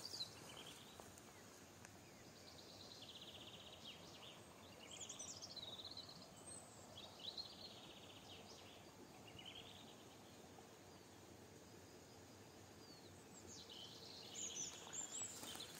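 Faint songbirds calling in quiet woodland: short trills and quick sweeping calls come and go through the first half, fall away for a few seconds, and return near the end.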